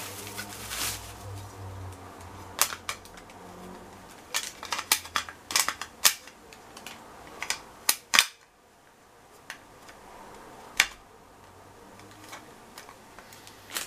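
Plastic wrapping rustling as a plastic soap dish is unwrapped, then a scattered run of sharp clicks and taps from its hard plastic base and lid being handled, several in quick succession midway.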